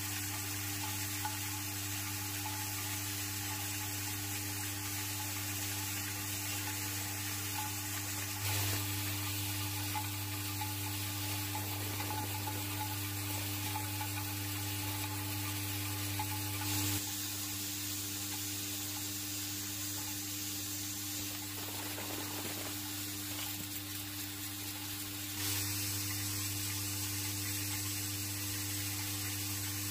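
Vibratory bowl feeder running: a steady low hum from its vibrating drive under a dense, sizzling rattle of steel collets jostling in the bowl and along its track. The mix changes abruptly a few times.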